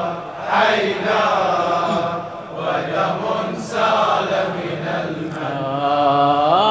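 A congregation of men chanting a mourning lament together, in answer to the lead reciter's line.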